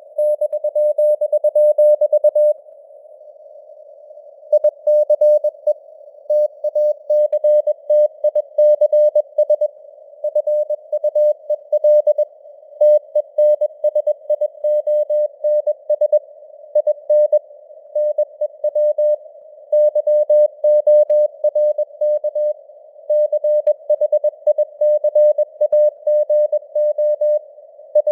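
Morse code (CW) sent at 21 words per minute: a single steady tone keyed on and off in dots and dashes, over a faint hiss of simulated radio noise. The keying pauses for about two seconds near the start, then runs on.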